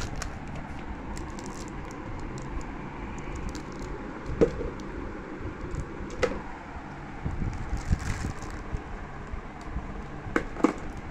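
Small plastic-wrapped candies clicking and crinkling in short, scattered bursts as a hand handles and drops them, over a steady low background noise.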